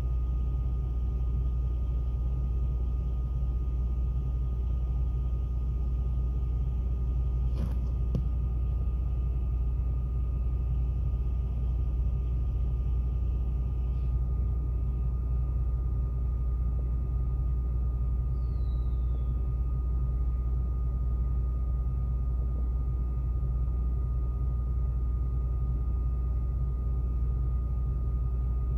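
Steady low rumble of idling vehicle engines, with a faint steady whine above it. A single sharp click comes about eight seconds in.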